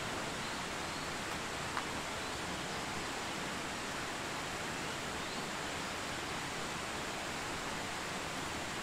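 Steady rushing of a nearby forest river flowing over rocks, with one faint click just under two seconds in.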